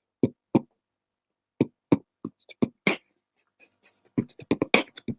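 Beatboxing: single vocal drum hits, spaced apart at first, then quickening into a dense, fast pattern of kicks, clicks and hisses from about four seconds in.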